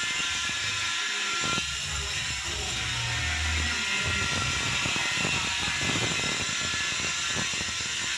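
Hand tools and metal parts clinking and clattering as someone rummages through an open toolbox, a few small clicks at a time, over a steady hiss.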